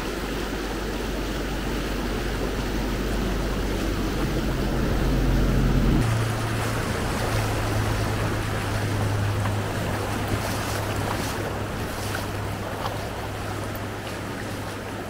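Steady rush of a river flowing over rocks, with wind buffeting the microphone as a low rumble, strongest in the first six seconds.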